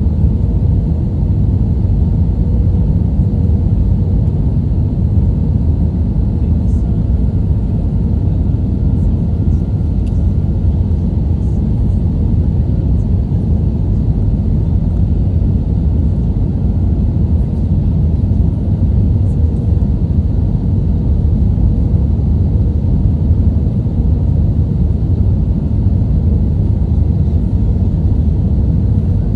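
Airbus A320 cabin noise heard from a window seat: a steady low rumble of engines and rushing air, even throughout.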